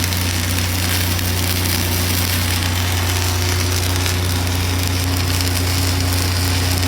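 Arc welding on a vertical-up pass: a steady frying crackle from the arc over a constant low machine hum.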